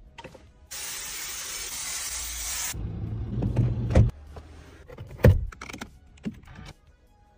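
An aerosol can of car foam air freshener is sprayed: one steady hiss of about two seconds that starts and stops sharply. After it come low handling bumps and a few sharp clicks.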